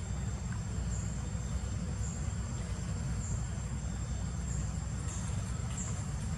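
Insects calling: a thin, steady high-pitched drone that swells into a brief louder pulse roughly once a second, over a constant low rumble.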